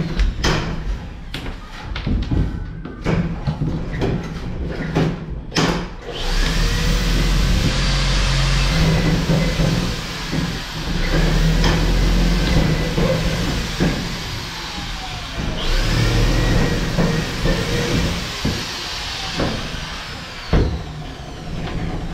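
Power drill boring into fibre-cement board on the steel-tube frame, running in three long bursts of a few seconds each with its pitch rising and falling. Sharp clicks and knocks come in the first few seconds.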